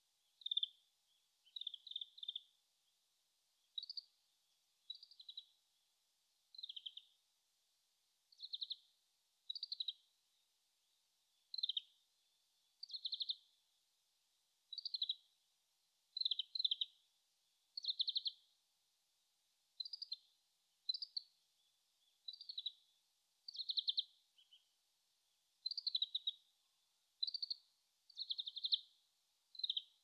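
Oriental greenfinch singing, faint and distant: short, fast-trilled, high buzzy notes repeated about once a second. The recordist takes it to be a bird still practising its song.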